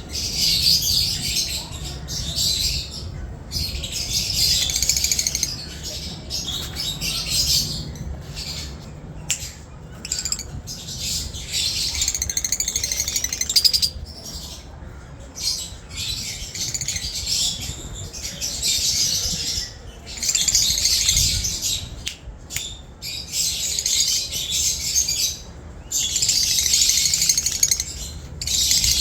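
Lovebirds chattering and squawking in bouts of dense, high-pitched calls lasting a few seconds each, with short breaks between.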